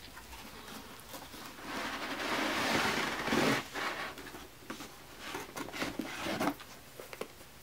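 Rustling and crinkling handling noise as a cardboard shoebox is opened and a sneaker is taken out, loudest about two to four seconds in, then scattered light taps and rustles that stop about a second before the end.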